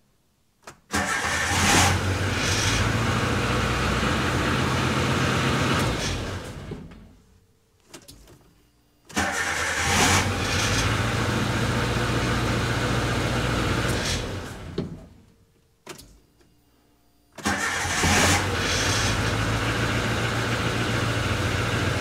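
Suzuki Samurai engine started three times in a row on a freshly rebuilt ignition switch. Each time it catches at once on the key and runs at a steady idle for about five seconds, then is switched off and dies away. These are test starts after fixing the clicky starter switch, and all three succeed.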